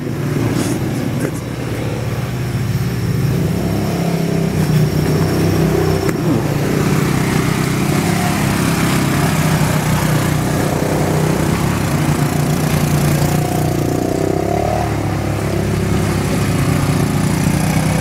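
Several ATV (quad bike) engines running close by as the quads pass one after another, growing louder over the first few seconds and then holding steady.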